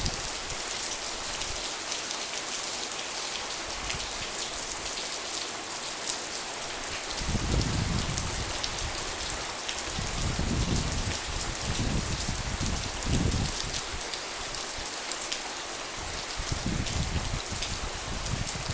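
Heavy rain falling steadily, a dense hiss of drops striking surfaces. Several low rumbles a second or so long break in every few seconds.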